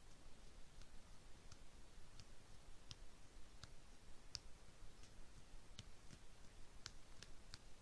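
About a dozen faint, sharp clicks, roughly one every half to three quarters of a second, over quiet room hiss.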